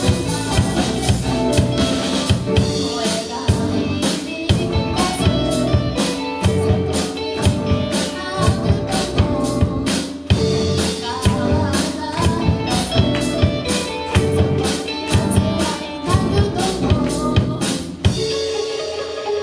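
Live rock band playing: a drum kit beats steadily under electric guitars. The drums stop about a second before the end, leaving the guitars ringing on.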